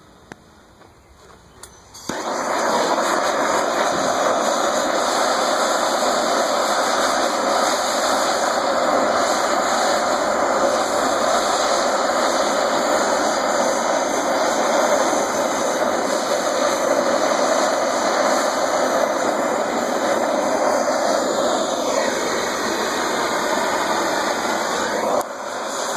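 Handheld propane torch burning with a steady rush of flame, lit about two seconds in and held on an aluminum snow shovel's rivet joint to heat it for brazing. The flame sound dips briefly near the end.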